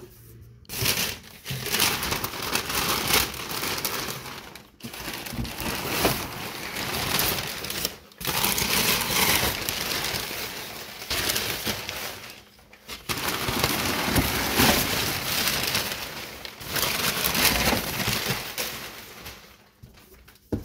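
Crumpled brown kraft packing paper rustling and crinkling as a hand digs through it, in long stretches broken by a few short pauses.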